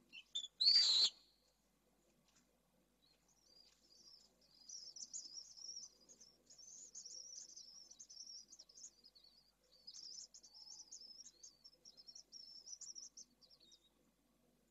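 Pale swifts at the nest: a short, loud call about a second in as a swift arrives. It is followed by about ten seconds of rapid, high, wavering twittering that comes in runs.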